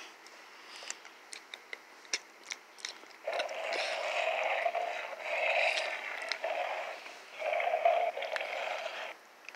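Mouth-made eating noises to go with a toy bear biting a plush lamb: a few sharp clicks at first, then from about three seconds in, four breathy munching stretches of about a second each.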